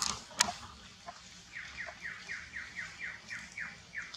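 A rapid, evenly spaced series of about ten short falling calls, roughly four a second, begins about a second and a half in. Two sharp squeak-like sounds come just before, near the start.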